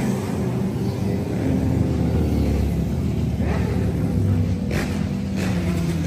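A group of motorcycles riding past one after another, their engines running steadily, with a few closer passes in the second half.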